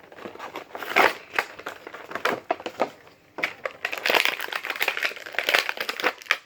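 Action-figure packaging, plastic and cardboard, being handled and pulled open: dense irregular crinkling and crackling, heaviest about a second in and again from about four to six seconds in, stopping abruptly near the end.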